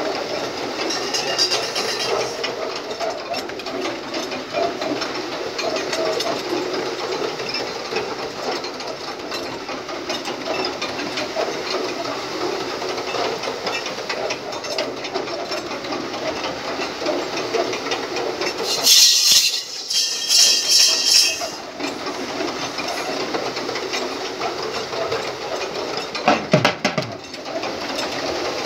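A pair of racing bulls pulling a wooden sled over a dirt track, giving a steady rattling, scraping clatter. About two-thirds of the way in there is a brief, loud, high-pitched burst.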